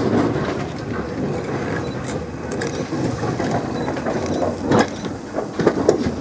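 Dubs 0-4-0 crane tank steam locomotive passing close by, its running gear clanking and clicking unevenly, with a few sharper knocks near the end.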